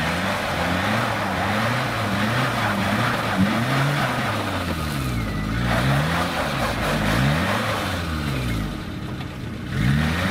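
Suzuki off-road 4x4's engine revved up and down again and again as it works to climb out of a muddy ditch, with a rushing noise above it that drops out briefly twice.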